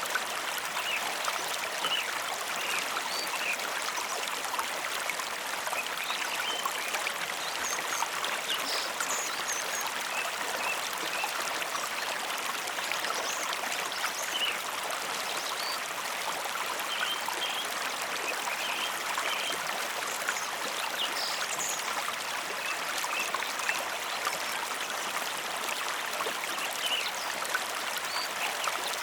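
Mountain river flowing steadily: a continuous rush of water with small splashes and gurgles scattered through it.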